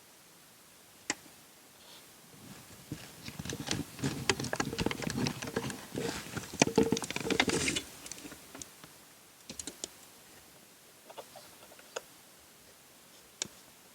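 Small plastic clicks and rubbing as an LED bulb is worked by hand into a car's interior light housing, with a dense run of clicks and scraping about four to eight seconds in, then scattered single clicks.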